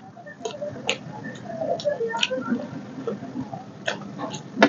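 Close-up eating sounds: a person chewing a mouthful of rice and curry with wet mouth clicks, and fingers mixing rice on a plate. There are scattered sharp clicks, irregularly spaced.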